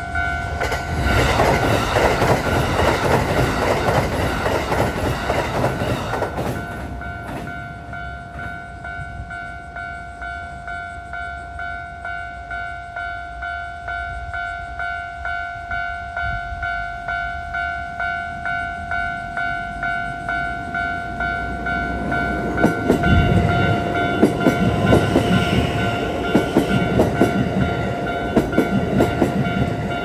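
Japanese level-crossing alarm ringing steadily with evenly repeating electronic dings, over train noise on a steel railway bridge. A rumble fades over the first six seconds. In the last third a Kintetsu 8A series electric train rumbles past close by, its wheels clacking over the rail joints.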